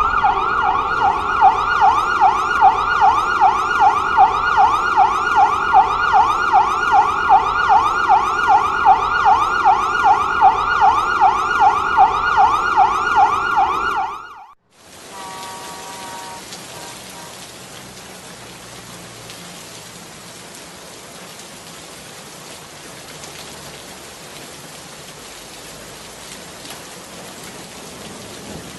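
Emergency vehicle siren yelping in fast rising sweeps, about three a second, which cuts off suddenly about halfway through. It gives way to a steady hiss of rain falling on a wet surface.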